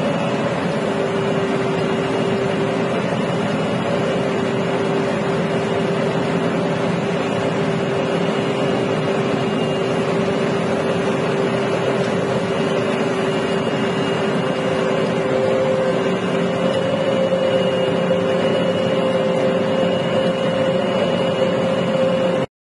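Combine harvester running: a steady mechanical drone with a humming tone, a slightly higher hum coming up about two-thirds of the way through. The sound cuts off abruptly at the very end.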